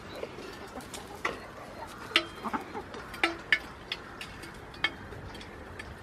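Domestic hens clucking in short, irregular notes, with sharp clicks scattered among them.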